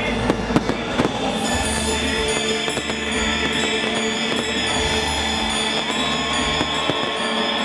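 Fireworks going off: several sharp bangs in the first second and a half, over music that carries on steadily after them.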